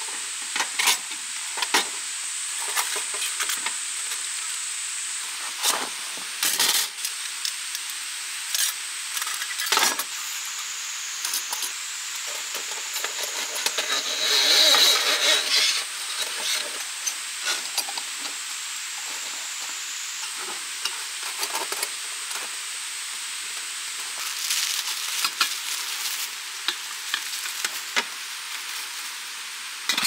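Small metal camping gear handled by hand: a folding brass lantern and a folding stainless steel stove clicking and clinking as they are folded and set up. A steady hiss carries on underneath, with a louder stretch of clatter about halfway through.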